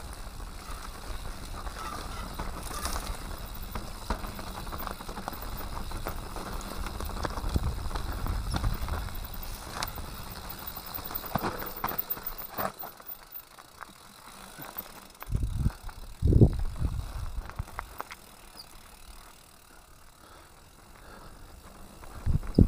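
Mountain bike riding down a rocky dirt singletrack: rolling tyre noise with the bike rattling and clicking over stones. Past the middle it quietens, broken by a few loud low thumps.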